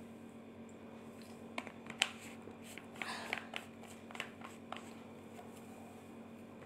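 Faint clicks and taps of a plastic water bottle being handled after a drink, the sharpest about two seconds in and a small cluster around three seconds, over a steady low hum.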